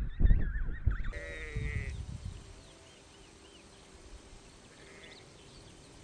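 Emperor penguins calling in a colony, wavering calls over low rumbling; about a second in this cuts to a sheep bleating once for about a second, followed by quiet pasture ambience with a few faint bird chirps.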